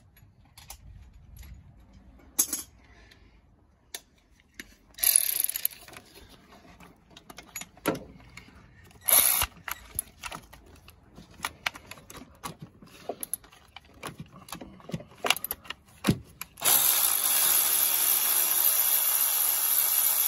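Scattered clicks and knocks of tools being handled, then, near the end, a cordless power tool with a socket runs steadily for about four seconds, undoing a bolt by the alternator, and stops.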